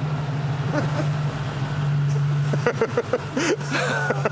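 A 1974 Chevrolet van driving up and drawing closer, its engine a steady low drone. From about two and a half seconds in, short voices call out over it.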